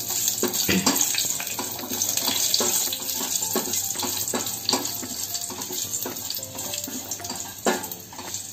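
Mustard seeds, cumin, curry leaves and dried red chillies sizzling in hot oil in a stainless steel pot, stirred with a spatula that scrapes and taps against the pot again and again.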